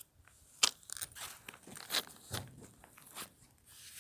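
Irregular crunching and scraping clicks, several a second, the loudest about half a second in.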